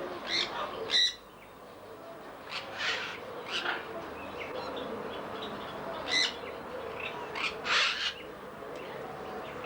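Caged birds calling: a string of short, harsh high-pitched calls, the loudest about a second in, with more in clusters near the middle and towards the end.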